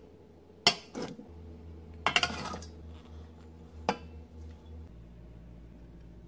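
Chopped vegetables tipped from ceramic bowls into a stainless steel pot: a few sharp clinks of the bowls against the pot, with a short clatter about two seconds in.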